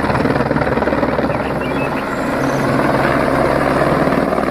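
Airbus AS350 Écureuil helicopter hovering low, with a steady chop of the main rotor over its engine noise.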